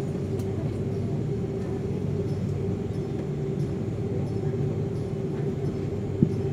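Steady drone of an Airbus A330's engines and cabin air heard from inside the cabin as the airliner taxis slowly, with a held whine over a low hum. A single short knock near the end.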